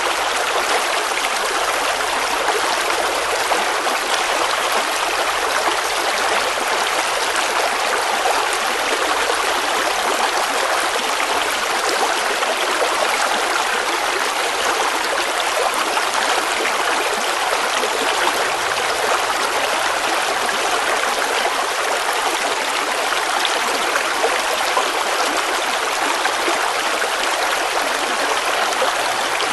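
River water flowing over stones, a steady rushing and trickling without let-up.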